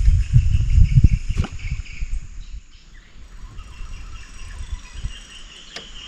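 A low rumble for the first second and a half, then steady insect buzzing, high-pitched and even, with a few faint clicks.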